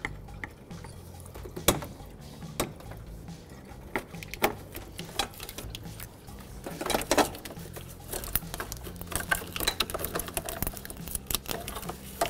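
Scattered light plastic clicks and rattles of hands unclipping a wiring-harness connector and its retaining clips, coming thickest over the last few seconds, over a low steady hum.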